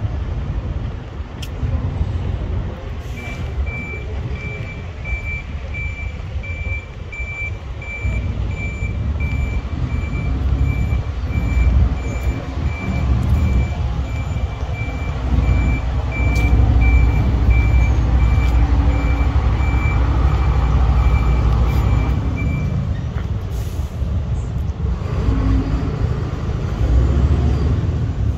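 A heavy vehicle's reversing alarm beeping steadily, about two beeps a second, over the low rumble of its engine. The engine grows louder in the middle, and the beeping stops a few seconds before the end.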